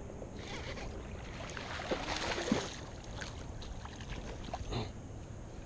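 A hooked bass splashing and thrashing at the water's surface as it is reeled in to the bank, louder for a moment about two seconds in.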